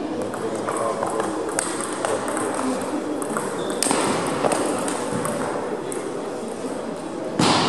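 Table tennis rally: the celluloid-type plastic ball clicking off rubber bats and the table in quick exchanges, over the murmur of a large hall. Near the end comes a short, louder noise.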